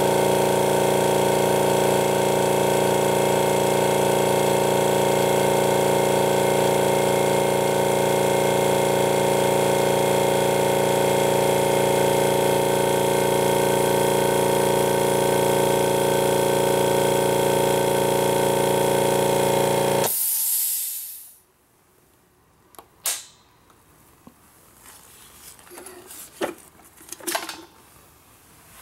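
Quiet Zone 750 W oil-free twin-head air compressor running with a steady hum. About two-thirds of the way through it stops abruptly with a short hiss of air. A few faint clicks and knocks follow.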